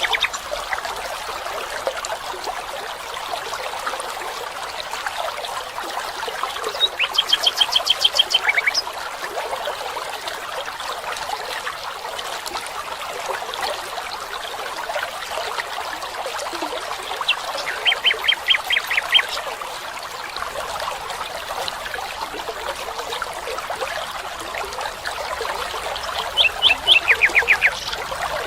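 Steady rushing of a stream, with a bird three times calling a quick series of repeated high notes, each series lasting a second or two and coming roughly ten seconds apart.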